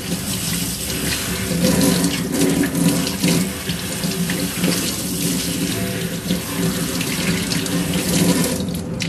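Water running from a kitchen pull-down faucet over a person's head and splashing into a stainless-steel sink while shampoo is rinsed out of the hair, a steady run of water throughout.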